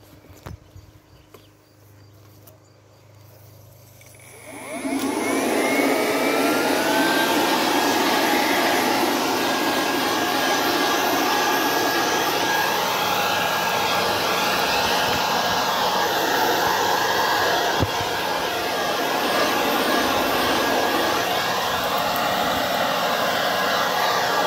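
Cordless electric leaf blower starting up about four and a half seconds in, its motor spinning up with a short rising whine and then running steadily at full speed, blowing leaves and debris out of a pile of harvested haskap berries.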